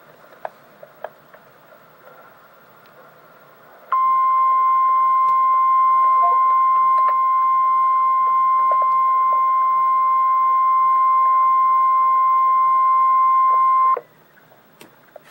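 Emergency Alert System attention signal for a severe thunderstorm warning: a single steady, loud beep tone that starts sharply about four seconds in, holds for about ten seconds and cuts off abruptly.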